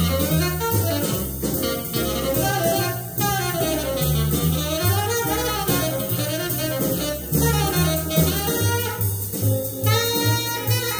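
Hard bop jazz recording: a tenor saxophone solos in fast, swooping runs over a walking double bass and a drum kit's ride cymbal.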